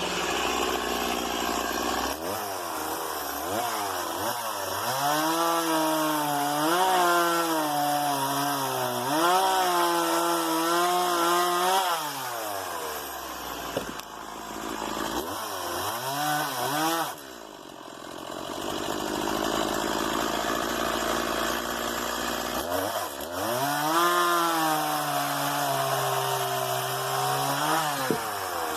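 Stihl MS 170 small two-stroke chainsaw idling, then revved up and cutting wood in bouts, about three times: the engine note sags and recovers under load and drops back toward idle between cuts.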